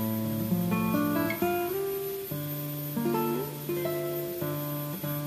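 Background music played on acoustic guitar, a run of plucked notes and chords.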